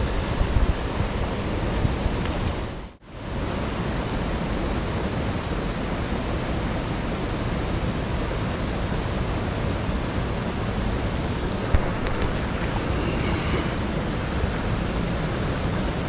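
Steady rush of stream water spilling through a beaver dam. The sound cuts out briefly about three seconds in, then resumes.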